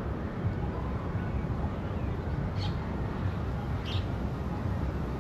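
City park ambience: a steady low rumble of distant traffic, with two short bird calls, about two and a half and four seconds in.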